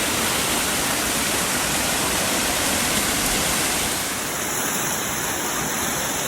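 Waterfall rushing: a loud, steady noise of falling water. Its tone shifts slightly about four seconds in.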